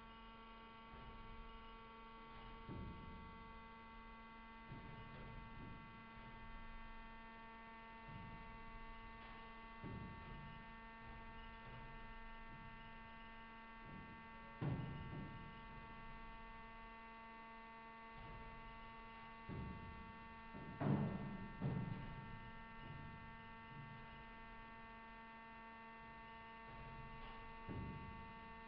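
Steady hum with dull low thumps every few seconds as a Pelamis P2 wave energy converter pitches through breaking waves. The loudest thumps come about a third of the way in and again about two-thirds of the way in.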